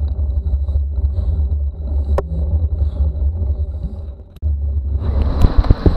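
Steady low rumble from a camera riding on a mountain bike climbing a paved road: tyre and road vibration with wind on the microphone. Two sharp clicks come partway through, and near the end the noise turns rougher and louder, with sharp knocks.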